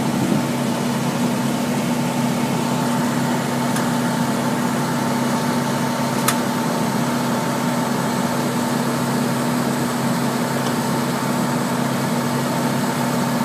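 Fire engine's engine running steadily, a constant hum with a steady tone. One sharp click about six seconds in.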